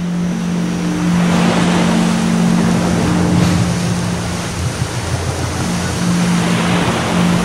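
Ocean waves washing in as a steady rush, with a low steady droning tone underneath.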